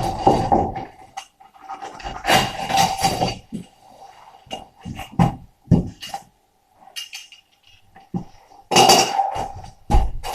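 Hand-tool work, scraping or rubbing in strokes about a second long: one at the start, one about two seconds in lasting over a second, and one near the end. Scattered knocks and clinks fall between the strokes.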